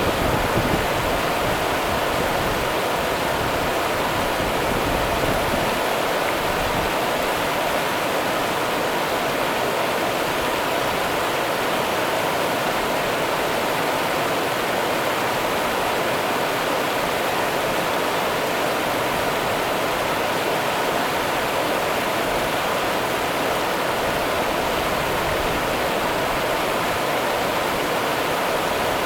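The Rio Grande's water running in a steady, unbroken rush.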